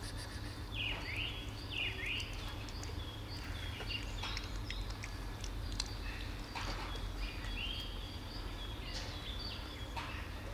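Small birds chirping in short falling calls, several times, over a steady low outdoor rumble. Faint short clicks of a cat chewing and licking wet food are mixed in.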